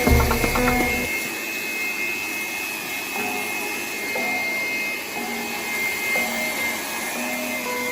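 Electric woodworking power tool's motor running at speed: a steady high whine over a rushing hiss.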